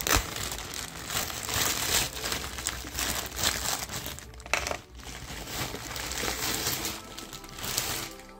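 Plastic packaging crinkling and rustling in irregular bursts as a parcel is unwrapped by hand.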